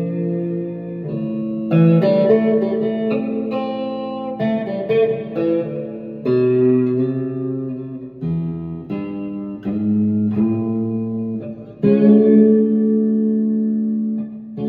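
Strat-style electric guitar with Kinman neck and middle pickups, played through an amp with a clean tone: a run of chords and single notes, each struck and left to ring, with a loud fresh strum near the end.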